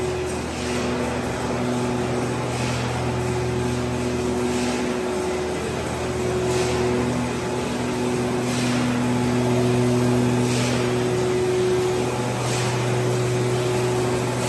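Paper-bag making machinery running: a steady mechanical hum with several held tones, and a soft hissing stroke about every two seconds.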